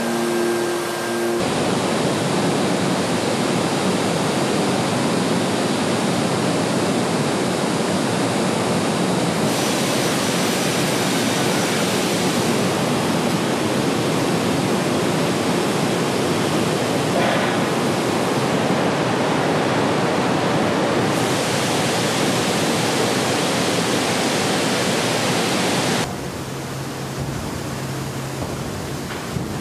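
Heavy steel rolling-mill machinery making a loud, even rushing noise, its character changing abruptly several times. It opens with about a second of steady humming tones. Near the end it drops to a quieter low hum.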